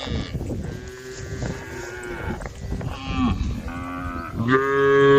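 Several cows mooing, their calls overlapping one after another, with a loud, long moo starting about four and a half seconds in.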